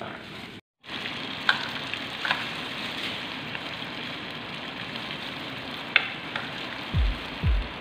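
A ball of potato and bread mixture frying in hot oil in a nonstick pan: a steady sizzle with a few sharp pops. Music with a regular low beat comes in near the end.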